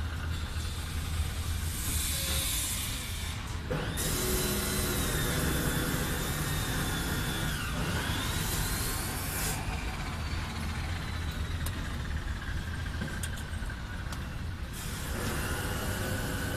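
Open-air building-site and city traffic noise: a steady low rumble with long hissing spells, the middle one carrying a wavering high whine.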